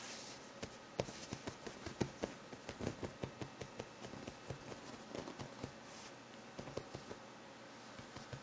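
Soft, irregular thumps and taps of a sphynx kitten's paws as it jumps, pounces and lands on a couch, with a couple of brief rustles.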